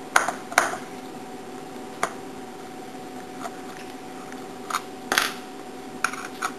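Screwdriver and plastic brush housing being handled while Phillips head screws are taken out: scattered short clicks and a few brief scrapes, over a steady faint hum.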